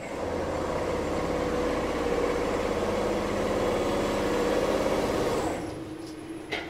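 Mammut Select VMK 250 CNC 601 multi-needle double lock chainstitch quilting machine stitching: a loud, fast, even mechanical clatter that starts abruptly, runs for about five seconds and then winds down. A single sharp click comes near the end.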